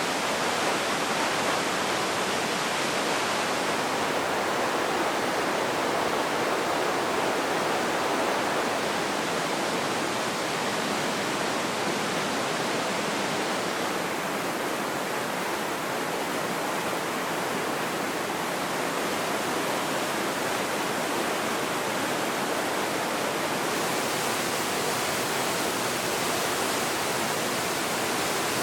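Waterfall: a steady, even rush of falling water, its tone shifting slightly a few times.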